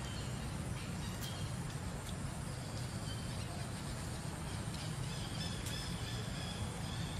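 Outdoor background noise: a steady low rumble with faint, short high chirps now and then and a few light clicks.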